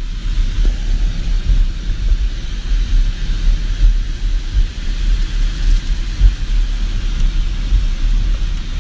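Road and wind noise of a moving car: a steady low rumble with a hiss above it.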